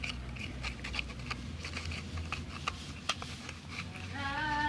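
Slime being stirred in a container: irregular small sticky clicks and taps. Near the end comes a brief high wavering vocal sound.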